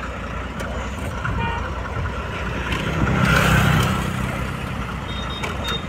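The hydraulic power unit of an HDPE butt-fusion welding machine runs with a low steady rumble. About three seconds in it swells louder with a hiss and a hum, then settles back.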